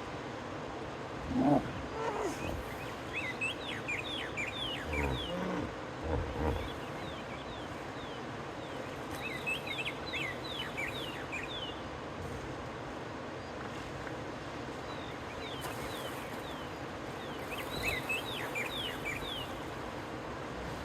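Hippos calling, with a loud, low call about a second and a half in and deep grunts a few seconds later. Bursts of high chirping come and go three times over a steady outdoor background.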